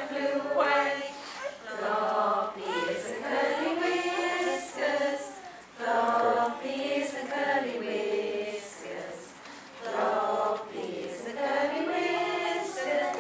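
A group of women singing a nursery action rhyme together, unaccompanied, in phrases with short breaths between them.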